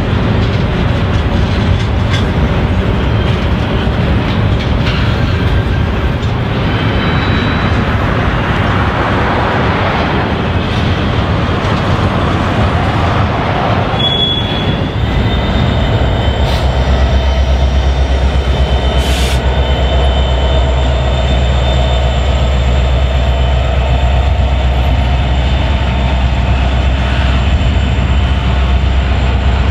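Double-stack container cars rolling past, steel wheels running on the rails, with a brief high wheel squeal about halfway through. Soon after, a deep steady rumble takes over: the diesel engine of a Union Pacific EMD SD70AH locomotive working as a mid-train distributed-power unit as it passes.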